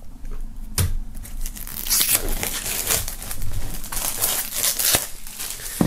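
Plastic shrink-wrap film being peeled off a cardboard box and crumpled: an irregular crinkling and tearing, with a sharp click just under a second in.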